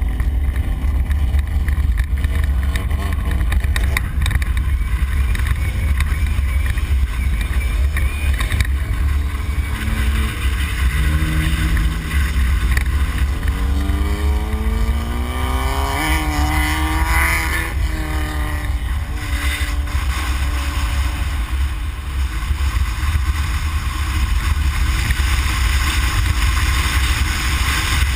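Off-road Ford Explorer prerunner heard from inside the cab, its engine running under load over heavy low rumble from the truck crossing rough desert ground. About halfway through, the engine pitch climbs for a few seconds as it revs up, then drops back.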